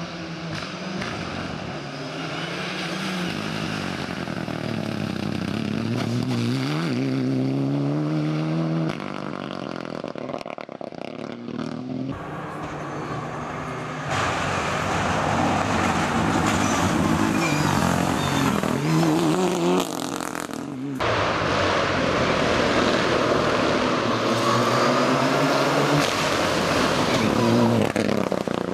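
Rally cars passing at speed one after another, each engine climbing and dropping in pitch as it revs hard through gear changes and lifts for corners.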